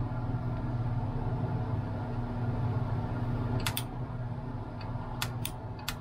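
Trigger-operated soldering gun humming steadily as it heats a VHF antenna plug, with a few sharp clicks in the last two and a half seconds.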